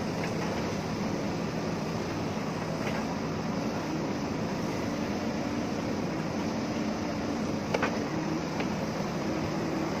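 JCB 3DX backhoe loader's diesel engine running steadily while the backhoe arm digs into the earth bank, with one sharp knock about three-quarters of the way through.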